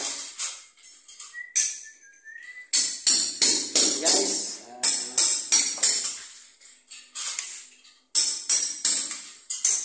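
Upbeat background music with a jingling percussion beat of about three to four strokes a second, and a voice over it at times.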